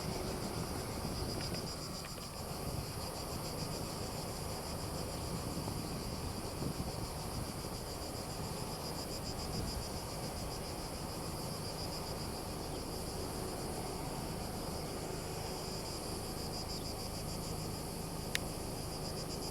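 Insects chirping steadily in a fast, even pulse, over a faint low rumble. A single sharp click comes near the end.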